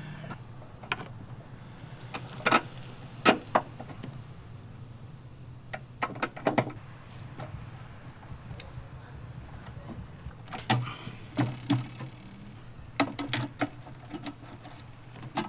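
Scattered sharp clicks and taps of a screw being put into a metal bracket, coming at uneven intervals with a busier patch near the end, over a steady low hum.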